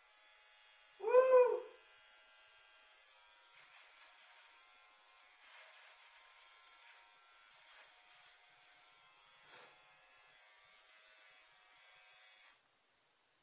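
Small electric trimmer buzzing steadily against a moustache, switched off shortly before the end. About a second in, a short loud cry that rises and falls in pitch cuts across the buzz.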